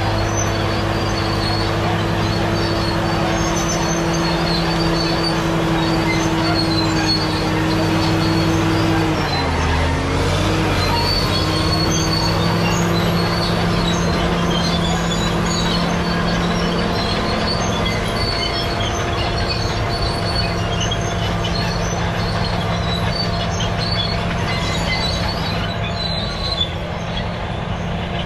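Caterpillar D7G crawler bulldozer working: the diesel engine runs steadily while the steel tracks squeal and clank. About nine seconds in, the engine pitch dips briefly and then recovers.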